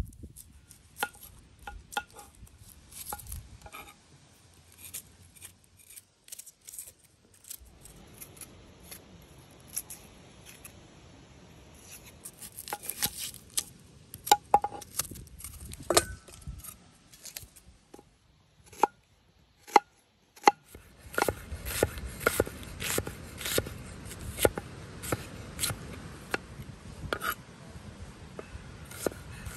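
Knife chopping food on a cutting board, in irregular runs of sharp strokes with short pauses between them.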